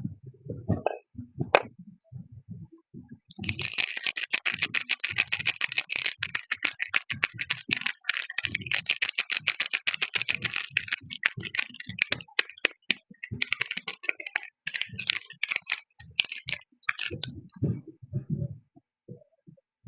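Crinkling and crackling of soap packaging being unwrapped by hand, a dense run of fast crackles. It starts about three seconds in and thins out near the end, with soft taps and handling thumps before and after it.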